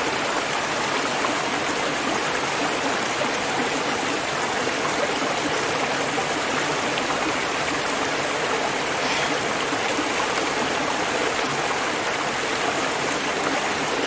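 Shallow rocky stream rushing over and around boulders: a steady, even rush of running water.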